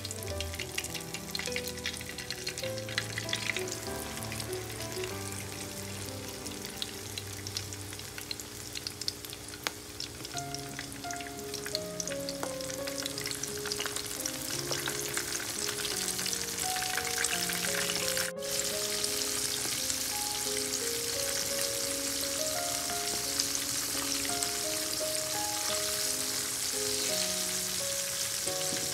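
Battered oysters deep-frying in a pan of hot oil: a steady sizzle with many small crackles, growing denser and louder after a brief break about two-thirds through. Light instrumental background music plays underneath.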